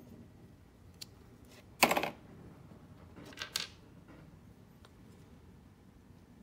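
Small snap-fit plastic parts of a Super Minipla Voltron figure's green lion clicking and clattering as they are handled and pulled apart. There is a single click about a second in, a louder short clatter about two seconds in and another about three and a half seconds in.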